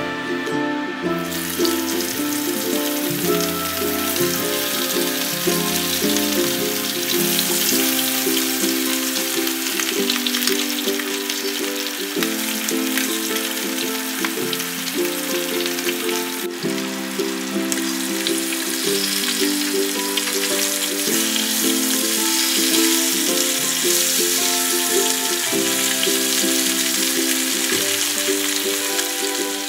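Whole mullet frying in hot mustard oil in a pan: a steady sizzle that starts about a second in, with background music.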